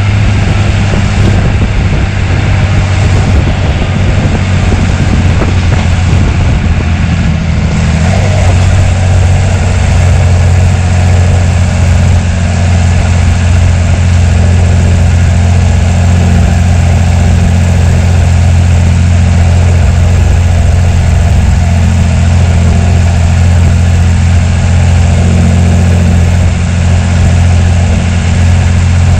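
John Deere 3350 tractor's six-cylinder diesel engine running steadily; its note changes about eight seconds in and then holds even.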